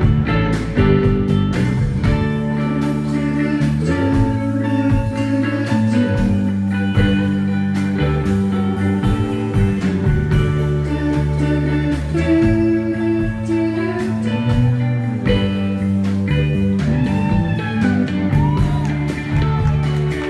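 Alternative rock band playing live: electric guitar over bass and drums, with sustained guitar notes and some bent, gliding notes near the end.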